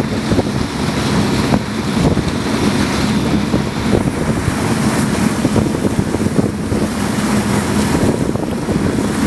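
Wind buffeting the microphone on a moving boat at sea, over water splashing and rushing past the hull and a steady low hum from the boat.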